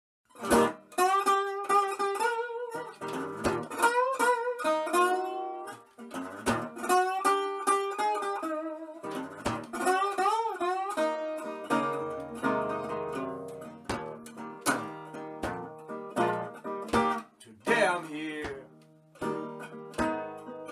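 Metal-bodied resonator guitar playing a picked blues intro, with some notes gliding up and down in pitch.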